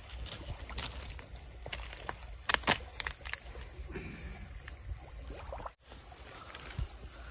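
Insects, such as crickets, droning steadily on one high note, with a quick run of sharp knocks about two and a half seconds in.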